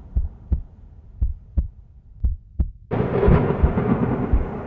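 Intro music with deep thumping beats in pairs like a heartbeat, about one pair a second, over a fading low rumble. Just under three seconds in, a fuller, dense layer of the track comes in abruptly over the beat.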